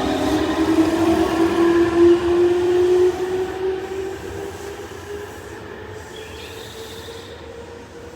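Nankai Koya Line electric train pulling away, its traction motors giving a whine that rises slowly in pitch as it accelerates, fading as the train moves off.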